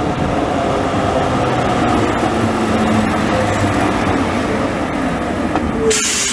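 Green Basel BVB tram running on the street track as it pulls in close, its wheels and motors making a steady running noise. A short, loud hiss comes near the end.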